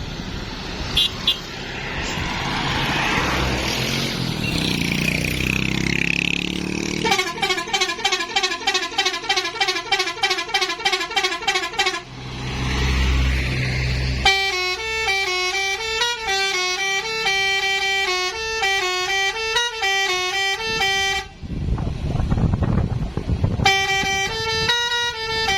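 Basuri telolet horn, a set of multi-tone air horns, being tested. After a rushing noise, it plays a fast warbling run of notes for about five seconds. After a short break it plays a several-note tune for about seven seconds, and the tune starts again near the end.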